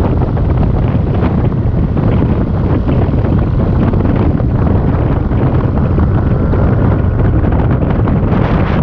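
Loud, steady wind rushing and buffeting on the microphone of a moving Yamaha scooter, with the scooter's running noise underneath.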